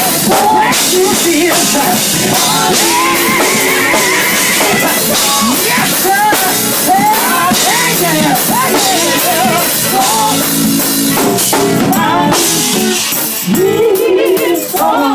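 Male gospel vocal group singing live, a lead voice over the group, with drums and band accompaniment.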